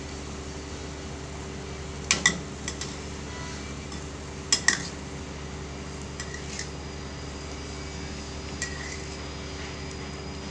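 Metal spatula clinking against a black non-stick wok while stirring soup. There are two quick double clinks, about two and four and a half seconds in, then a few lighter taps.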